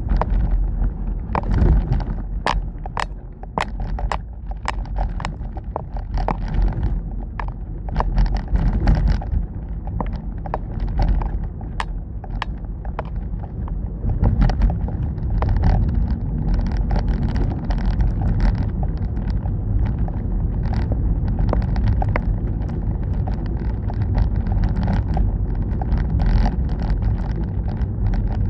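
Car driving, heard from inside: a steady low road and engine rumble with frequent sharp clicks and knocks over it, thickest in the first several seconds.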